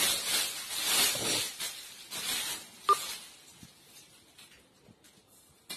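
Clear plastic wrapping rustling and crinkling as it is pulled off a stainless steel pot, in several bursts. Just before three seconds in there is one sharp metallic clink, followed by faint handling ticks.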